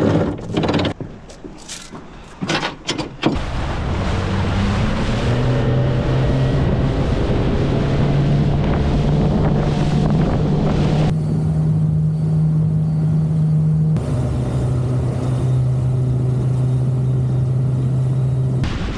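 Anchor chain clattering as it is handled into the bow locker for the first few seconds, then an outboard motor driving the boat under power, its pitch rising as it speeds up and then holding steady.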